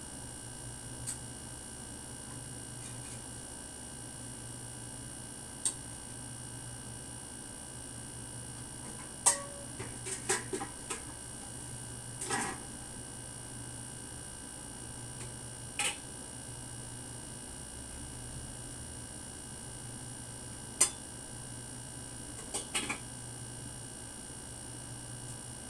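Room tone: a steady low hum under irregular sharp clicks and knocks, about a dozen in all, with small clusters about nine to thirteen seconds in and again near the end.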